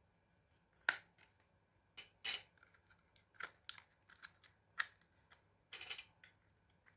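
Irregular clicks and short scrapes of small hard parts being handled while a laptop is worked on, about a dozen in all, the sharpest just under a second in and the longest scrapes about two and six seconds in.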